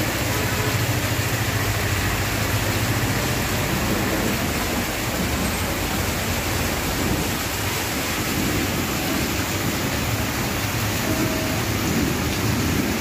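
Heavy rain pouring down on a waterlogged street, an even, steady hiss.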